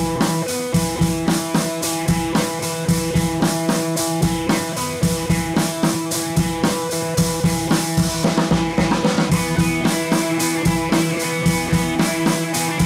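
Background music: a drum kit keeps a steady beat under held notes.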